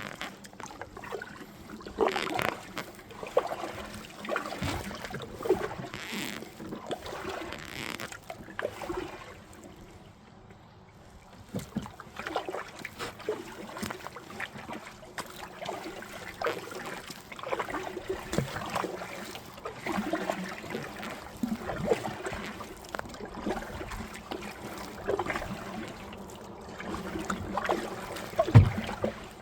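Water splashing and dripping around a kayak on a river, in uneven strokes every second or two, with a loud thump near the end.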